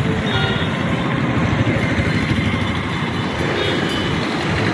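Steady road traffic noise, a continuous low rumble of passing vehicles.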